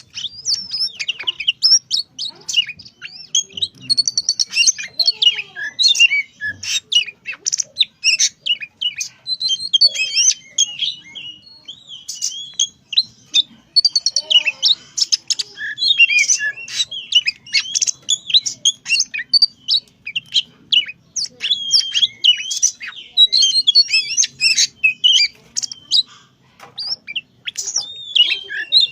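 A young oriental magpie-robin singing continuously: a rapid, varied run of clear whistles and chattering notes with only short pauses.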